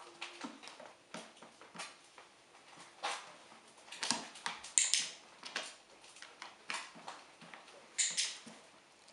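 A dog's paws and nails tapping and scuffing on a plastic step stool and rug, mixed with sharp clicks of a training clicker; the loudest come as quick double clicks about five seconds in and again near the end.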